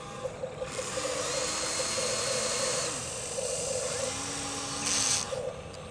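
Small electric motors and gears of a radio-controlled construction vehicle running, with a rapid, even ticking and a thin high whine. A brief louder burst of hiss comes about five seconds in.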